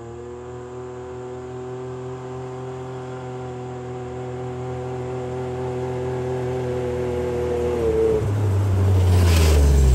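A vehicle engine running at a steady pitch and slowly growing louder, then dropping in pitch about eight seconds in, with a brief rushing noise just after.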